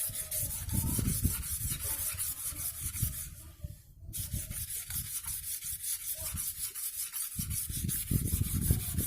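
Sickle blade being stroked back and forth on a fine whetstone, a rapid, even scraping rhythm that stops briefly about four seconds in and then resumes.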